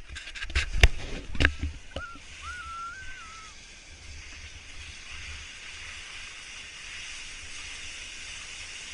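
A few sharp knocks and bumps on the microphone in the first two seconds, then a steady hiss of sliding over packed snow, with a low rumble of wind on the microphone.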